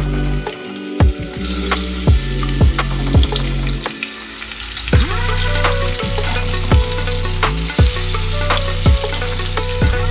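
Turmeric-coated rohu fish pieces sizzling in hot oil in a frying pan, with many short sharp pops of spattering oil throughout.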